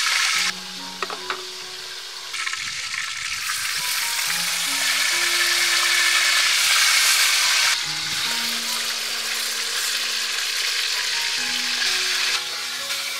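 Marinated meat slices sizzling and spitting in hot oil in a wide wok, with a few light clicks about a second in. The sizzle grows louder from about two seconds in and drops back near eight seconds. Soft background music with slow held notes plays underneath.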